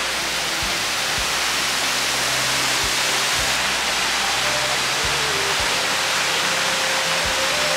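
Waterfall pouring steadily into a rock pool, a constant rushing hiss, with faint bamboo-flute background music.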